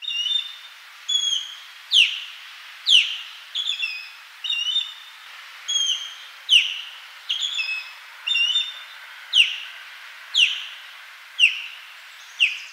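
Osprey calling: a series of high whistled notes, the strongest sliding down in pitch, about one a second, with shorter paired chirps in between.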